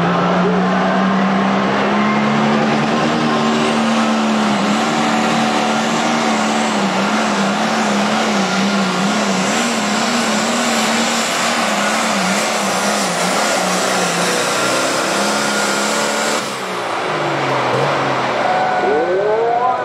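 Pulling tractor's engine at full throttle through a hook down the track, its pitch wobbling up and down as it pulls. About sixteen seconds in, the throttle is cut and the engine winds down.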